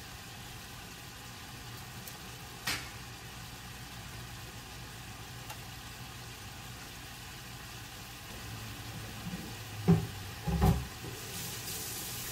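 Cauliflower sizzling steadily in a frying pan beside a pot on the boil, over a low steady hum. A sharp click a few seconds in and two louder knocks near the end, then a rush of water near the end.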